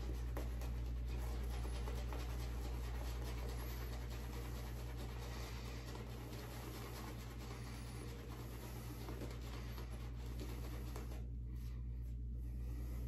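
Badger shaving brush scrubbing lather across a bearded face: a continuous soft, bristly scratching that eases off near the end, over a steady low hum.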